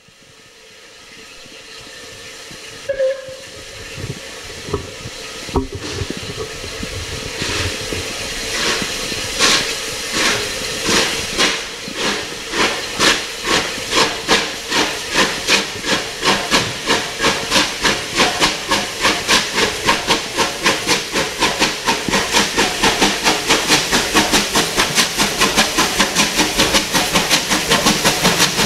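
Bulleid Battle of Britain class steam locomotive 34070 Manston, a three-cylinder Pacific, pulling away with a train. Its chimney beats start slow, about one a second, and quicken to several a second while growing louder as it comes closer, over a constant hiss of steam.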